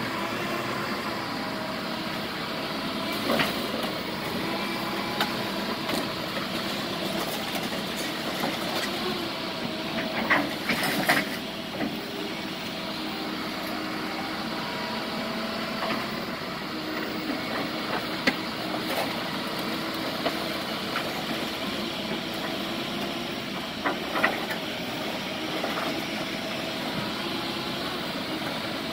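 Engine of heavy demolition machinery running steadily, with a few short sharp knocks, the loudest cluster about ten seconds in.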